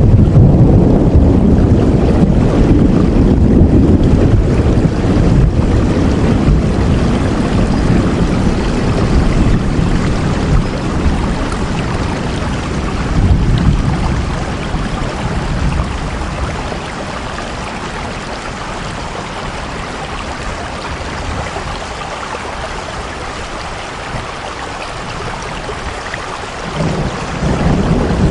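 Steady rain falling, with a heavy low rumble like wind that eases about halfway through and swells again near the end.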